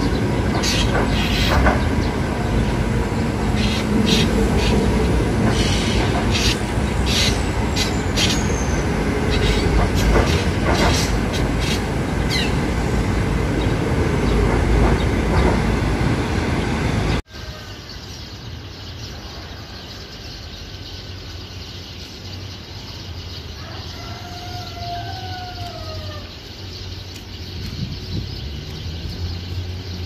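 A loud, steady background noise with scattered sharp clicks, cut off abruptly about 17 seconds in. Quieter background follows, and a drongo gives a couple of short slurred whistled calls near the end.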